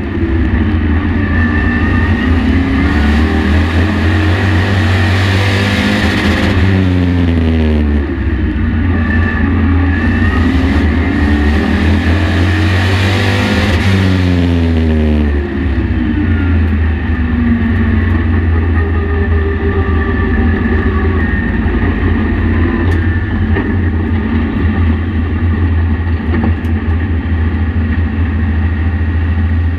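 Race truck's engine heard from the in-car camera. Its pitch climbs and then drops sharply about every seven seconds as the driver lifts for each turn of the short oval. About halfway through it settles into a steadier, lower running.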